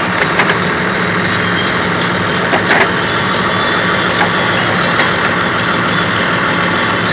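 Tractor engine idling steadily, with a few light metallic clinks as tools are picked from a socket set.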